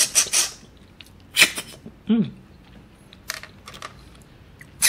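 Wet sucking slurps as cooked siput sedut snails are sucked out of their shells by mouth: four or five short, sharp slurps about a second apart. There is a brief hummed 'mm' about two seconds in.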